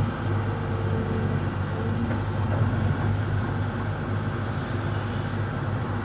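Diesel engine of a Kobelco hydraulic excavator running steadily with a low, even hum.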